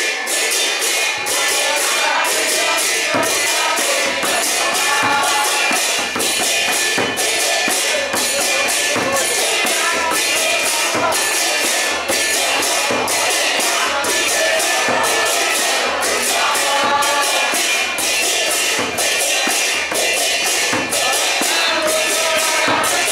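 Devotional kirtan: a group of voices chanting over hand cymbals clashing in a fast, steady beat, with a drum thumping underneath.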